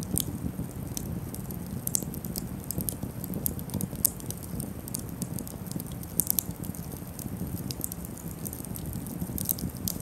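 Wood campfire burning: a low steady rush of flame with frequent irregular crackles and pops from the burning sticks, one sharper pop about four seconds in.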